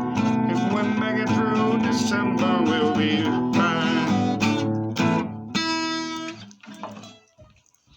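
Acoustic guitar playing the closing bars of a country song, ending on a final strummed chord about five and a half seconds in that rings and fades away.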